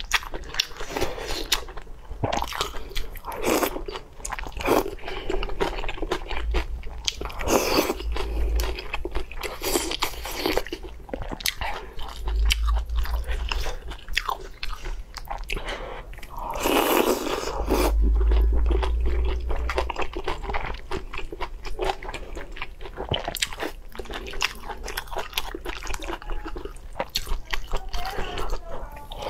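Close-miked eating sounds: biting and chewing mouthfuls of spicy hot pot with sliced meat and bok choy, as a run of irregular wet clicks, with one longer, louder stretch about two-thirds of the way through.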